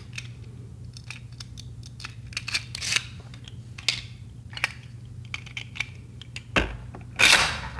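Scattered light plastic clicks and taps of Beyblade spinning tops being picked up, handled and fitted back onto their launchers, with a louder rustling scrape about seven seconds in. A steady low hum runs underneath.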